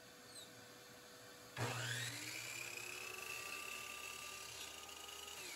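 Electric miter saw switched on about a second and a half in, its motor whining up to speed and running steadily as the blade is brought down through a thin wood strip. Near the end the trigger is released and the whine falls in pitch as the blade starts to spin down.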